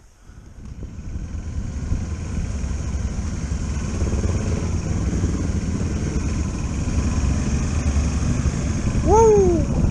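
Motorcycle engine running at low speed, building up over the first couple of seconds and then holding steady as the bike rolls along. Near the end a short pitched call rises and falls over the engine.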